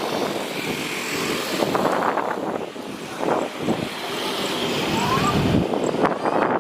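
Jet airliner engine noise with a faint whine, mixed with strong wind buffeting the microphone; the low rumble swells about five seconds in, then drops away.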